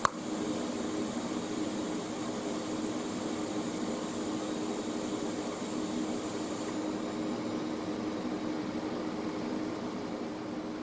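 Parweld XDI 201 TIG welder running, a steady fan hum and hiss, with one sharp click at the very start as the arc is struck.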